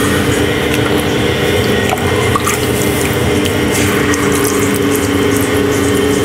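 Electric potter's wheel running with a steady hum, under the wet squelching and slapping of hands and a sponge working the spinning wet clay.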